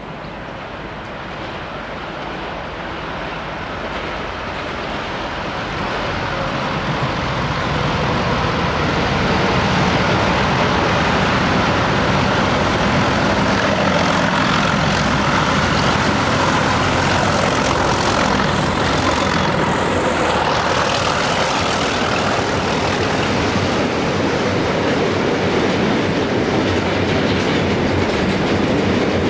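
Diesel locomotive approaching and passing through the station at the head of a freight train of tank wagons. The sound builds over the first several seconds, then the wagons roll by loud and steady with the clickety-clack of wheels over the rail joints.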